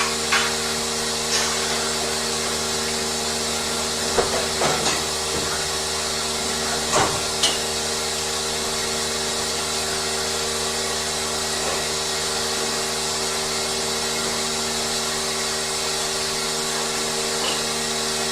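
Machinery running steadily with a constant hum and hiss, broken by a few short knocks or clanks around four to five seconds in and again near seven seconds.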